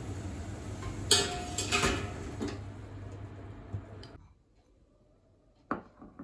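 Metal mesh strainer and ice clinking against a glass bowl of ice water as dango are tipped in, with one loud clink about a second in and several lighter ones after, over a steady hum from the stove and boiling pot. The sound cuts away about four seconds in, and near the end a ceramic bowl is set down on a wooden table with two light knocks.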